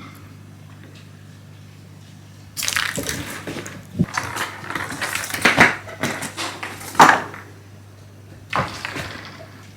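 Scuffling, rustling noise in several bursts, with a few sharper knocks among them, over a steady low hum.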